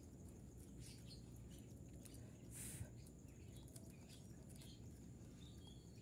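Near silence with soft, scattered crackles and rustles from rabbits chewing a banana plant stalk among dry leaves; the loudest comes about two and a half seconds in. A brief faint high chirp sounds near the end.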